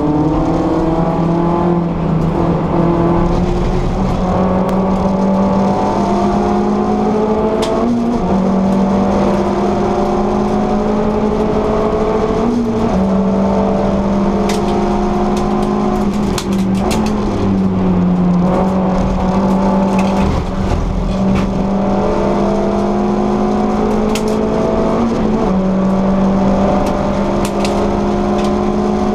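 VW Lupo GTI Cup race car's 1.6-litre four-cylinder engine heard from inside the stripped cabin, running hard at high revs under racing load. The engine note holds mostly level with a few sudden steps in pitch, over steady road noise and occasional sharp clicks.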